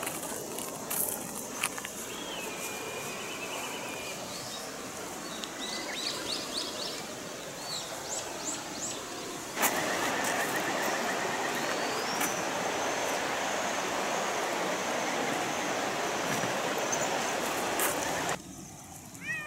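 Outdoor ambience: birds chirping over a steady rushing noise. The noise turns louder about ten seconds in and drops away just before the end.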